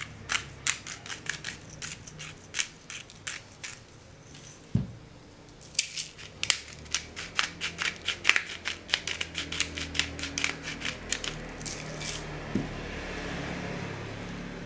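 Hand spice mill grinding seasoning: a run of sharp clicks about three a second, pausing briefly with one low thump near the middle, then clicking again.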